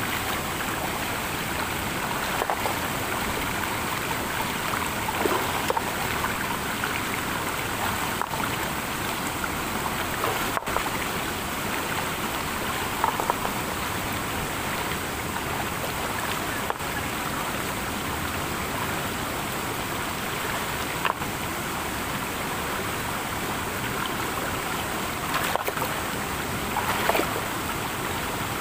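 Mountain stream water rushing steadily over rocks, with a few brief splashes of hands moving in the shallow pool.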